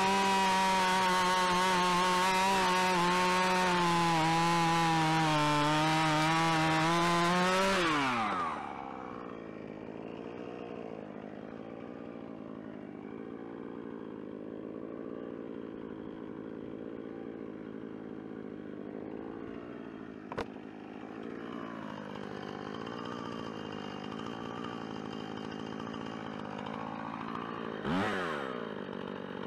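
Husqvarna 445 two-stroke chainsaw at full throttle cutting down through a firewood log, its pitch sagging a little under the load, then dropping to a steady idle about eight seconds in once the cut is through. A single click comes partway through the idle, and near the end the saw revs briefly and falls back.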